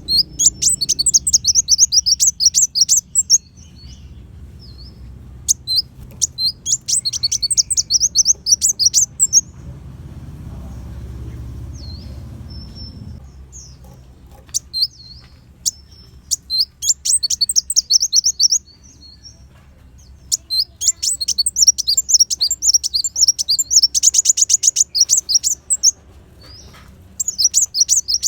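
Kolibri wulung (a sunbird) singing: high, rapid chattering trills in phrases of two to four seconds with short pauses between them, about six phrases in all.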